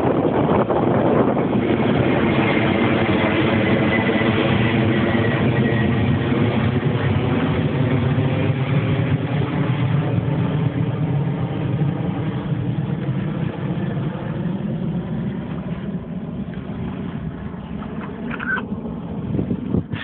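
Jet airliner passing overhead: a loud engine rumble with a faint whine that falls in pitch in the first few seconds, fading steadily as the plane moves away.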